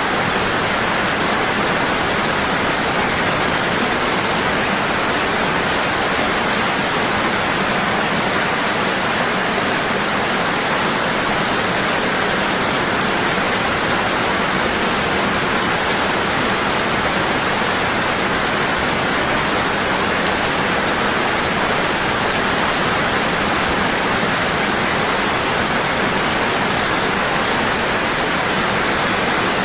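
Waterfall, water falling strong and constant in an even, steady rush.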